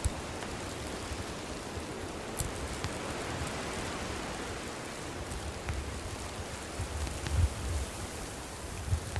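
Wood campfire burning: a steady hiss with sparse sharp crackles and pops, one clear pop a couple of seconds in and a few smaller ones later, and low rumbling swells near the end.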